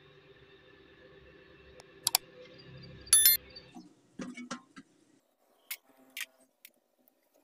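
Subscribe-button animation sound effects: a mouse click about two seconds in, then a bright bell ding just after three seconds, over a faint steady hum. After that come a few light knocks and clicks as a dented metal motorcycle fuel tank is handled on a brick floor.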